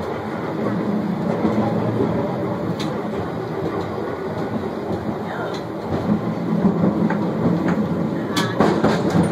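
Heritage electric streetcar rolling along its rails, heard from inside the car: a steady running rumble, with a few sharp clicks near the end.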